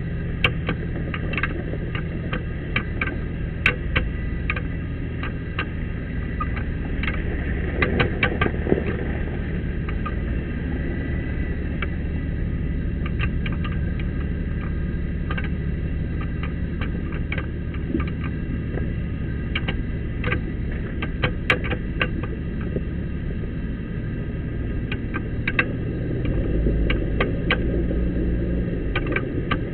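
Off-road vehicle engine running at low speed as it crawls over a rough, rocky trail, with frequent sharp knocks and rattles as it bumps over ruts and stones. The engine gets louder near the end.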